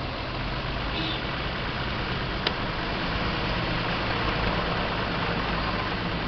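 Vehicle engine running steadily at low revs, a low drone with a hiss over it, and one short click about two and a half seconds in.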